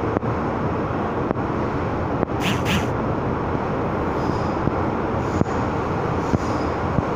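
Cabin noise of an MTR M-Train running between stations: a steady rumble of wheels on rail with a few sharp clicks, and two short high hissing sounds about two and a half seconds in.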